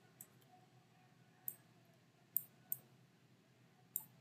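Computer mouse clicks: about four short, sharp clicks spaced unevenly over a few seconds, over quiet room tone.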